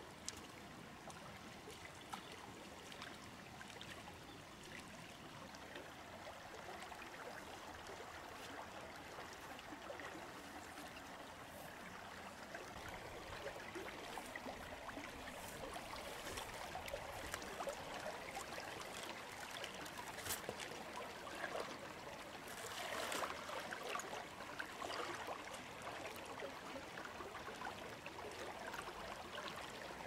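Shallow stream running over stones, a faint steady rush of water that swells briefly about three quarters of the way through.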